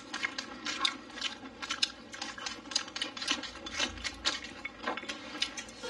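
Close-up chewing of a mouthful of sauce-mixed rice: a string of small irregular mouth clicks, several a second.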